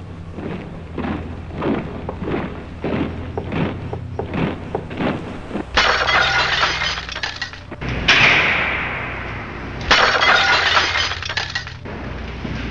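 A run of regular knocks, about two a second, then three loud shattering crashes, the middle one ringing down in pitch as it fades, over a low steady hum.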